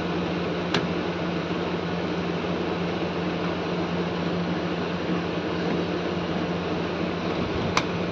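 A fan running steadily with a constant low hum. Two small sharp clicks come through it, about a second in and near the end, as a screwdriver works the metal terminal screws of a power supply.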